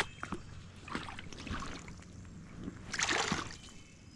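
Water splashing and sloshing at the edge of a pond, a few short splashes with the loudest about three seconds in, and a couple of sharp clicks at the very start.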